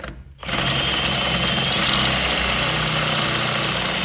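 Cordless power tool motor running steadily with a loud grinding hiss as its bit works metal, on a battery that is running low. It starts about half a second in and stops near the end.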